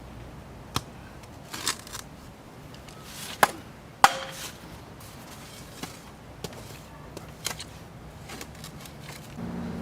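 Scattered sharp knocks and scrapes of a digging tool striking dirt and roots in a trench. The loudest hit, about four seconds in, rings briefly like metal.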